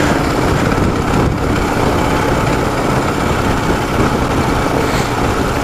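Ural motorcycle's opposed-twin (boxer) engine running steadily while riding, mixed with steady wind rush over the microphone.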